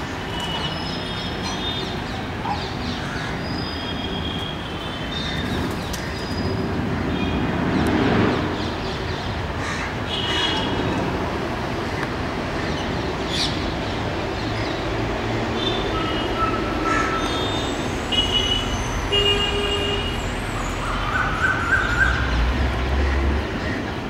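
Steady urban background rumble with short, high bird chirps scattered through it, often in runs of two or three quick notes.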